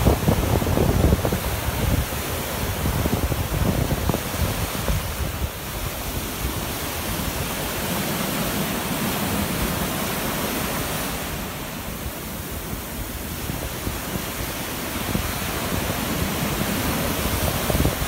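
Surf from a rough sea breaking in foam and washing up a sandy beach, a steady rushing noise that swells and eases. Wind buffets the microphone in low rumbles.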